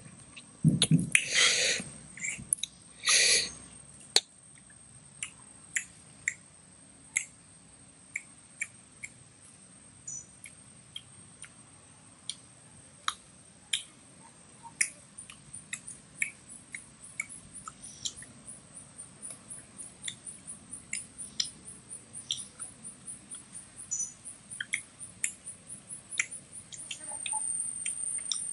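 Close-up eating sounds of roasted snake meat being pulled off a bamboo skewer and chewed: a few loud crunches in the first few seconds, then a long run of sharp mouth clicks and smacks that come quicker toward the end, about two to three a second.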